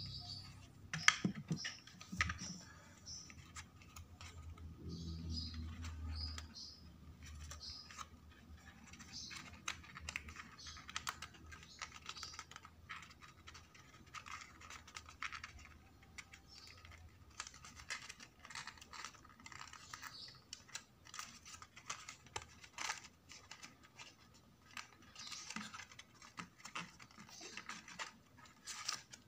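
Printed card paper being handled, bent and pressed together by hand: irregular crinkling, scratching and small clicks, with a couple of sharper knocks about a second in.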